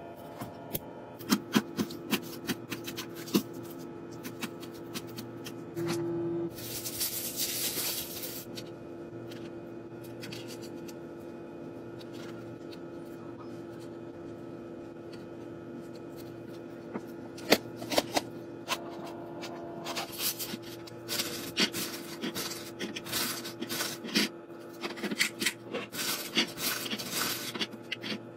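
Plastic food-storage containers and food packaging handled on a stone countertop: scattered clicks, taps and rustling, busiest near the end, with a brief rushing noise about six seconds in, over a steady low hum.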